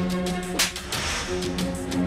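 Dramatic background film score of sustained low tones, with a sharp hit about half a second in and a short hissing swell just after.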